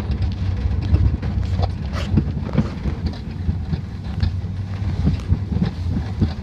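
Pickup truck driving along a rutted dirt track, heard from its open bed: a steady low rumble with frequent knocks and rattles as it bumps over the ruts.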